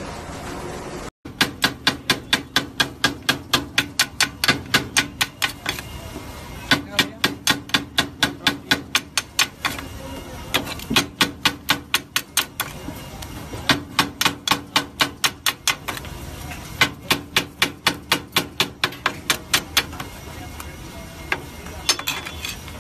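Metal spatula chopping and tapping on a flat iron griddle: rapid, regular sharp clicks about four or five a second, in runs of a few seconds with short pauses, stopping near the end.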